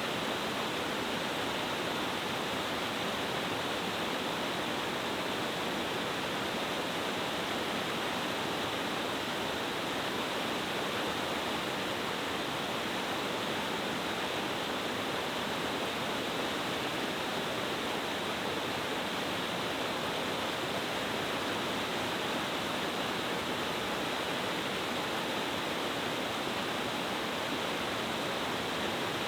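Waterfall cascading in several tiers down a mountain stream: a steady, even rush of falling and churning water.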